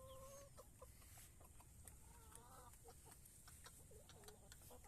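Backyard chickens clucking quietly: short calls throughout, with a longer held call at the start and a wavering call about two seconds in.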